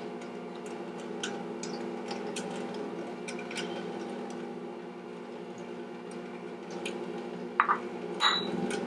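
Light clicks and scrapes of a spatula against a small bowl as it is scraped out, over a steady electric hum; two sharper taps near the end.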